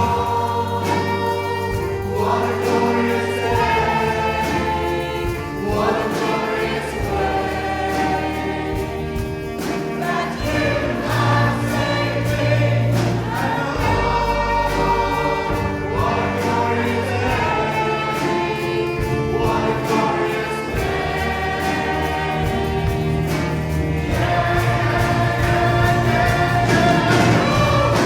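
Christian worship song sung by a group of voices in unison over band accompaniment with sustained bass notes.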